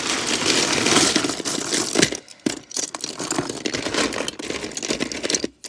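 Loose plastic Lego bricks and minifigures clattering as a hand rummages through a heap of them: a dense rattle of many small clicks that stops abruptly near the end.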